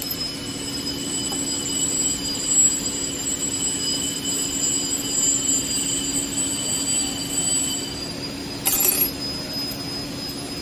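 Steady mechanical whine and hum of machinery running in the background, with several high steady tones over a low hum; two of the high tones stop about eight seconds in. A short metallic clatter comes near the end.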